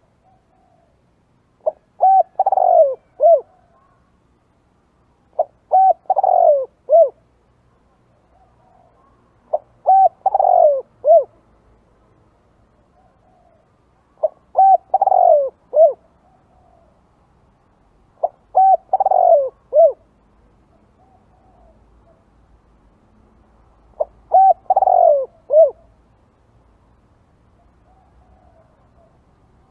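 Spotted dove cooing: six phrases of a few coo notes each, repeated about every four seconds, with a slightly longer pause before the last one.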